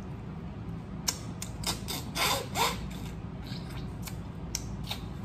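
Cooked crab-leg shell snapping and crackling as it is picked apart by hand: scattered sharp clicks about once or twice a second, with wet mouth sounds of eating a couple of seconds in.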